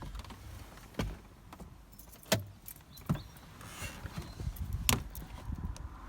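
Four sharp knocks, irregularly spaced over a few seconds, above a low steady rumble.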